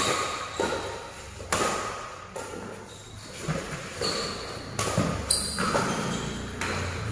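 Badminton rally: a string of sharp racket hits on the shuttlecock, roughly one a second, with short squeaks of shoes on the court floor between them, echoing in a large hall.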